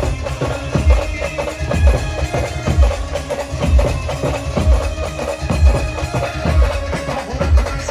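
Indian brass band playing an instrumental passage of a slow, sad song: a held melody line over a slow, steady bass-drum beat, about one stroke a second.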